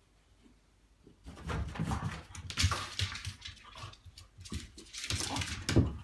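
A French bulldog scrambling after a laser dot, starting about a second in: paws and claws scrabbling and thumping on the wooden floor and carpet, mixed with the dog's own huffing noises, in irregular bursts.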